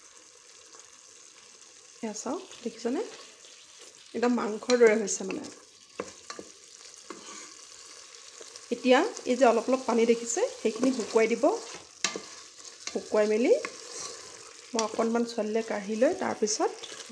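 A wooden spatula stirs and scrapes thick soya chunk curry in the inner pot of a Geek Robocook electric pressure cooker, in several bouts of strokes that sound pitched and squeaky. Under the strokes is a steady faint sizzle.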